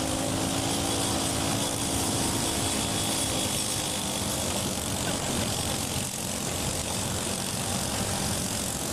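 Riding lawn mower engine running at racing speed, a steady drone with a broad rushing noise over it.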